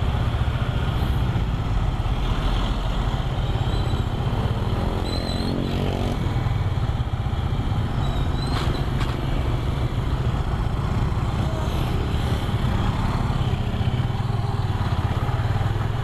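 Motor scooter engine running at idle, a steady low drone. About five seconds in another engine rises in pitch as it speeds up, and there is a single sharp click near the ninth second.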